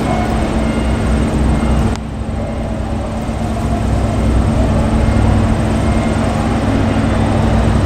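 KiHa 47 diesel railcar running with a low, steady engine drone and a steady hum. The higher rail noise drops away suddenly about two seconds in, and the engine drone grows louder after that.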